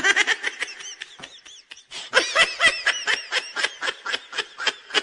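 A person laughing in quick, high-pitched bursts, in two bouts, with the second and louder one starting about two seconds in.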